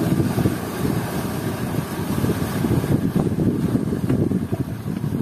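Wind rumbling steadily on the microphone aboard a small open boat at sea, with water washing against the hull.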